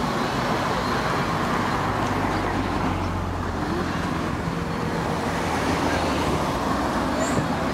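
Steady outdoor din with a low rumble, like passing road traffic, and no separate firework bangs standing out.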